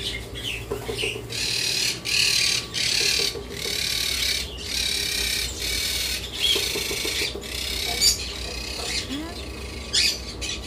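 Many caged small birds chattering and squawking together in dense, choppy bursts, with a steady low hum underneath.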